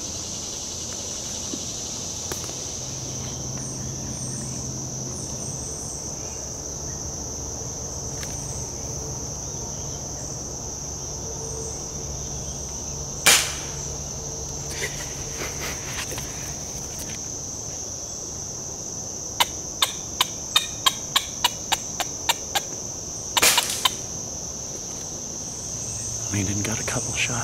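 Steady, high-pitched insect chorus of crickets and the like in summer woodland. A single sharp crack cuts through about halfway, a run of about a dozen quick clicks at roughly three a second follows, and a second, broader crack comes near the end.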